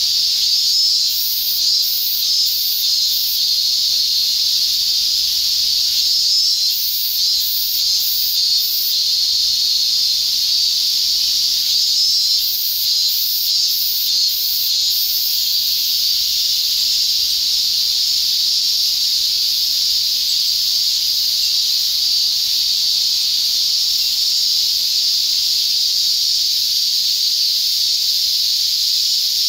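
Steady, loud insect chorus, a high hissing buzz, with three spells of a faster pulsing buzz higher up in the first half.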